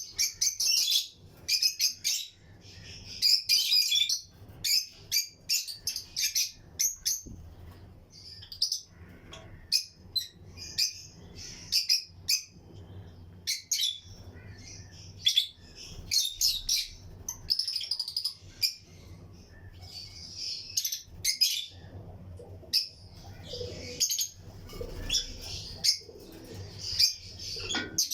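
A colony of lutino lovebirds chirping, with many short, shrill calls overlapping several times a second.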